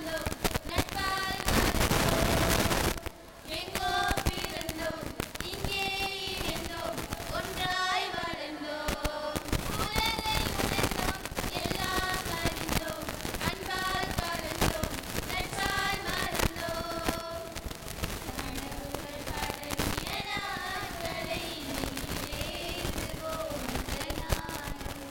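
A group of young female voices singing a song together in unison into microphones, with crackling clicks over the whole passage and a brief loud burst of noise about two seconds in.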